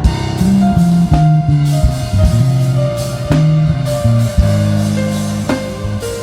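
Worship band playing an instrumental passage between sung lines: bass notes, drum-kit hits and a lead melody stepping gradually downward, with no singing.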